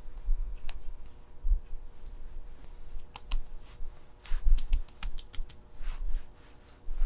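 Fingertips patting and tapping sunscreen into facial skin close to the microphone: a quick, uneven run of soft, moist clicks, busiest in the middle, with a few low bumps.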